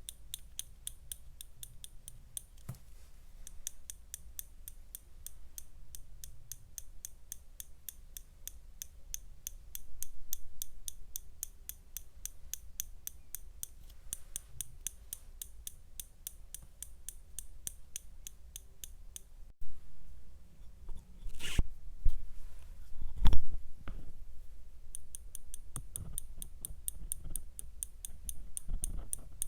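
Rapid, evenly spaced clicking, several clicks a second, from a small mechanism. It breaks off about twenty seconds in for a few louder knocks and thuds, then resumes near the end.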